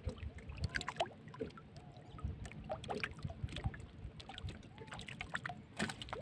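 Sea water lapping and sloshing against a small outrigger boat, with scattered light knocks and splashes as a fishing handline is hauled in by hand.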